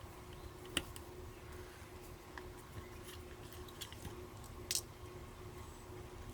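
Faint, scattered clicks and taps of small tools and plastic camera parts being handled during disassembly of a Canon T6/1300d camera body, over a steady low hum. The two loudest clicks come about a second in and near the end.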